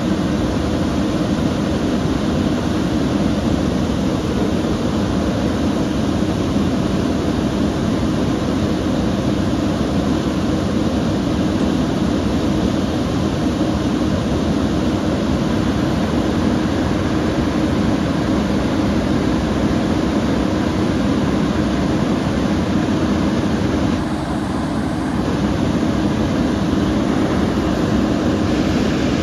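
Fire engine's engine running steadily to drive its pump, mixed with the hiss of a hose stream spraying water.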